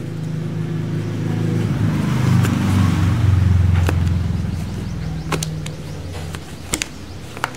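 A motor vehicle's engine running, a low steady hum that grows louder toward the middle and then fades, as if the vehicle is passing. A few sharp clicks come in the second half.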